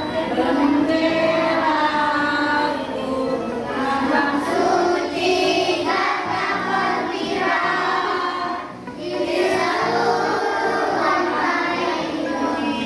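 A class of primary-school children singing a patriotic song together in unison, with a short break between phrases about nine seconds in.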